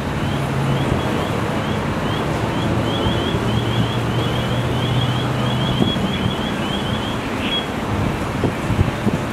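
Steady engine drone with a low hum, as of the fire engine or a gas-powered ventilation fan running. A rapid series of short, high rising chirps sounds over it, up to about four a second, and stops about three quarters of the way in; a few light knocks come near the end.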